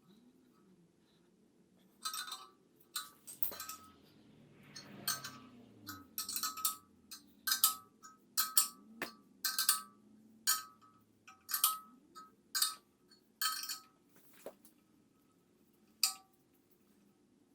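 Hammer tapping on the steel of an excavator bucket's quick coupler: a string of sharp, ringing metal clinks, irregularly about one a second, with a short lull near the end before a final strike.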